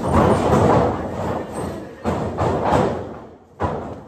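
A run of heavy thuds and slams ringing out in a large room, the sharpest hit coming about three and a half seconds in.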